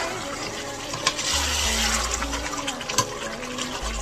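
Chicken gizzards sizzling and bubbling in a hot stainless steel pot while a metal ladle stirs them, with a few sharp clicks of the ladle against the pot.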